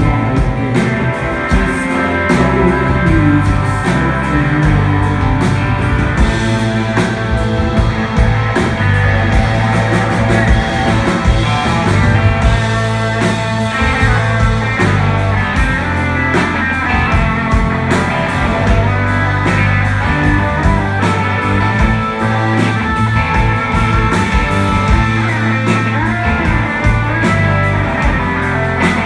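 Live rock band playing an instrumental passage: electric guitars, bass guitar and drums, with a hollow-body electric guitar playing lead.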